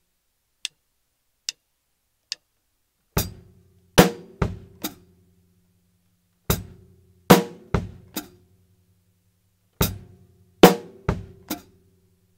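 Acoustic drum kit playing a slow one-bar fragment three times: hi-hat with an accented bass drum, hi-hat with snare, a bass drum stroke, then a hi-hat pedal chick on beat 3, followed by a rest. Before the first pass come three faint metronome clicks, about one every 0.8 s.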